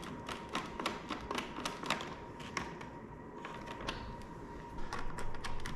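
Scattered light clicks and taps of hand tools on small bolts as the two bolts holding a pit bike's rear fender to the gas tank are fitted and tightened.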